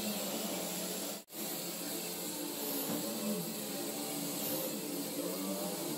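Gas welding torch flame hissing steadily while it heats steel for brazing with a filler rod. The sound drops out for an instant about a second in.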